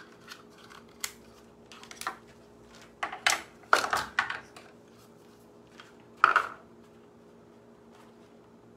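Measuring cups and spoons clattering as they are handled and set down on a table: a scattering of short clicks and knocks, with a louder cluster around three to four seconds in and one more sharp knock past six seconds. A faint steady hum runs underneath.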